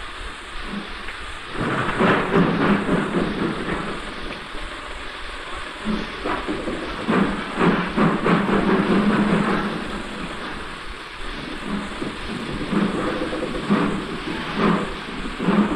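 Model steam locomotive running along the layout track, with a rumbling, hissing noise that rises and falls in uneven surges.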